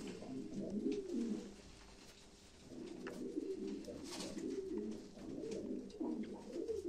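Domestic tumbler pigeons cooing in low, warbling phrases, with a short pause about two seconds in.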